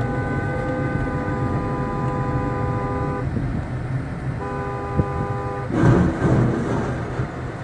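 Car horn held for about three seconds, then sounded again for just over a second, over steady road and engine noise heard from inside a moving car. Near the end a louder rumbling rush of noise rises.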